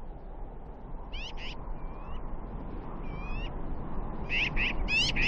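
Wind blowing across open desert, growing louder, with repeated short high animal cries that sweep down in pitch, mostly in pairs.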